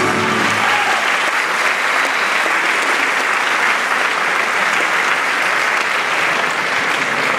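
Theatre audience applauding steadily, with the song's last held note and plucked strings dying away under it in the first half-second.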